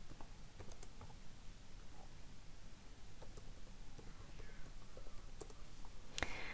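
Faint computer keyboard keystrokes, scattered irregular clicks with a sharper one near the end, over a low steady hum.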